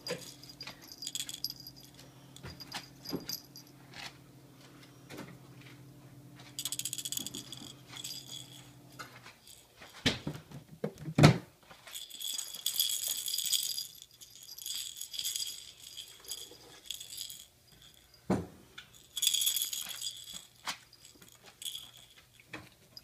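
Yorkie puppy at play, with about five bursts of high jingling and a few sharp knocks in the middle.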